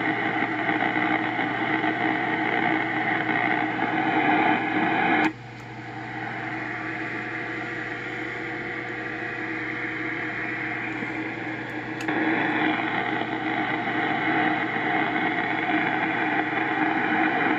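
HF transceiver's speaker hissing with loud power-line noise (QRM). About five seconds in, with a click, it drops sharply to a much quieter hiss as the QRM eliminator cancels the noise, and about twelve seconds in it jumps back up with another click.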